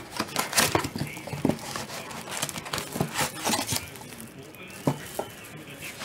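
Plastic wrapping crinkling and rustling as it is handled, dense for about four seconds and then thinning out, with two sharp clicks near the end.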